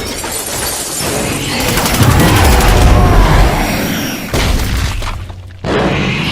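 Cartoon battle sound effects: heavy booms with crashing and shattering, loudest about two seconds in, with two more sudden hits near the end.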